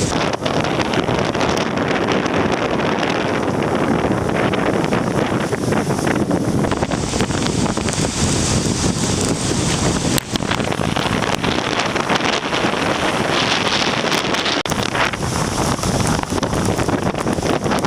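Steady, heavy typhoon wind on the microphone, with sea water and waves rushing beneath it.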